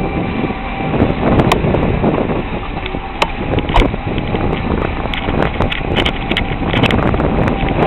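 A vehicle driving over a rough, rutted dirt track, heard from inside the cab: a steady rumble with many irregular knocks and rattles as it jolts over the ruts.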